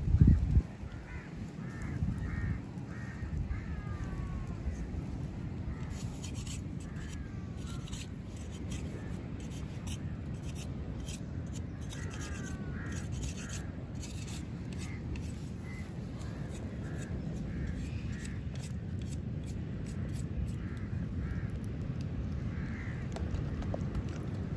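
Birds calling in runs of short, repeated, cawing notes, a cluster near the start and another about halfway through, over a steady low rumble.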